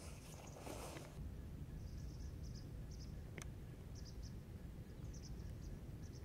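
Low wind rumble with small groups of short, high-pitched chirps every second or so. One sharp click about three and a half seconds in is a golf club striking the ball.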